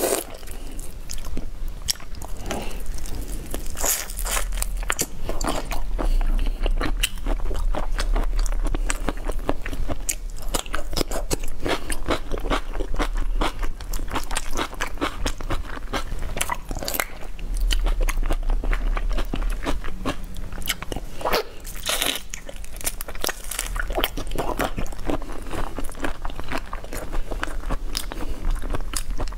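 Close-miked crackling and crunching of whole marinated shrimp being peeled by hand and bitten and chewed, with a thick stream of small clicks and snaps from the shells.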